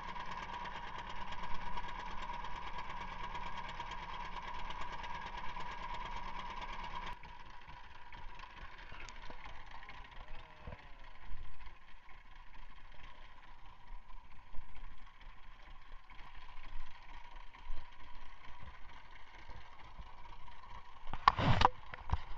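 Small fishing boat's engine running steadily with a held hum. It drops in level about seven seconds in and keeps running. Near the end come a few loud knocks.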